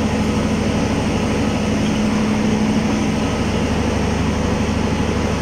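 Steady mechanical hum with a low, even tone that weakens a little after about three seconds.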